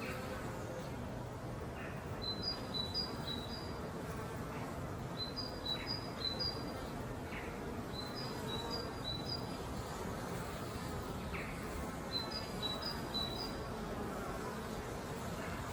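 Honey bees buzzing steadily around their beehive as foragers fly in. A bird repeats a short phrase of high notes every few seconds.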